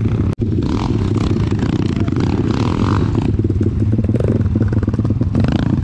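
Pit bike single-cylinder four-stroke engine running steadily at low revs, with a fast pulsing throb, as other pit bikes ride around it.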